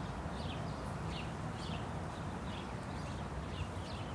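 Faint short high chirps, two or three a second, from a small bird, over a steady low outdoor rumble.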